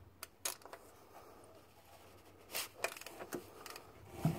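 Socket wrench with an extension clicking and knocking against the power steering pump's adjusting nut as it is turned to loosen it: a few faint, irregular metal clicks, the loudest near the end.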